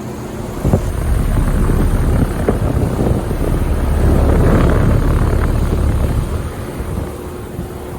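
2011 Bryant Legacy Line heat pump running with a low rumbling hum. It swells louder a second or so in, is loudest in the middle, and eases off near the end.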